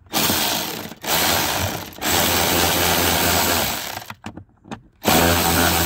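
Cordless power driver with a socket extension, spinning a 7 mm screw on a dashboard trim panel, run in several bursts of one to two seconds that stop and start again.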